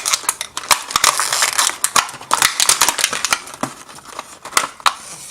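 Toy packaging being opened by hand: the stiff plastic of a small blister-card pack crackles and crinkles, with many quick clicks and snaps.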